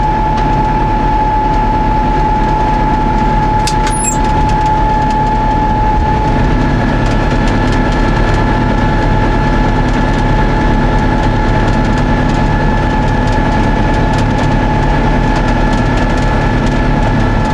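Tractor engine and John Deere 535 round baler running steadily, with a steady high whine, while the baler wraps a finished bale in twine. A single sharp click about four seconds in.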